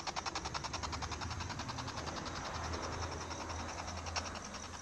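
Spirit Box radio scanner sweeping through stations: choppy bursts of radio static at about eight a second. The bursts weaken in the middle under a low hum.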